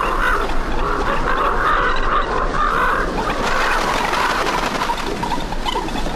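Short animal calls repeating several times a second over a steady hiss.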